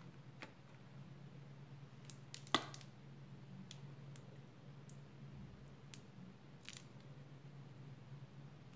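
A plastic mayonnaise squeeze bottle is handled and squeezed onto lasagna sheets, giving a few faint clicks and taps, with one sharper click about two and a half seconds in. A steady low hum runs underneath.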